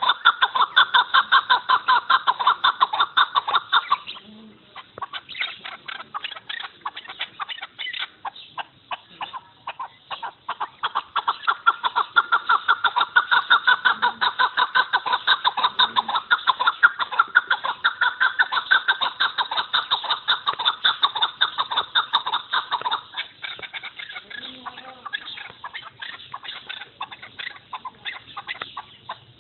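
Chukar partridge calling: long runs of rapidly repeated clucking chuk notes, loud for the first four seconds and again from about eleven to twenty-three seconds, fainter in between and toward the end.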